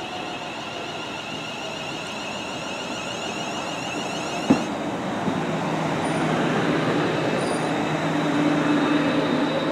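A London Northwestern Railway Class 350 electric multiple unit pulling into a station platform, its running noise growing louder as the carriages come alongside. A single sharp click about halfway through.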